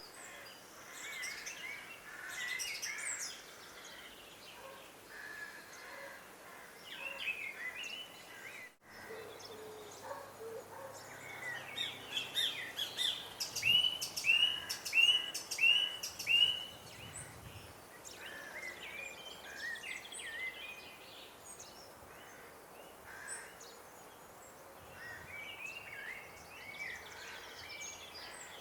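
Several small birds chirping and singing over a faint steady background hiss, with a loud run of five identical repeated notes about halfway through. The sound drops out completely for an instant about a third of the way in.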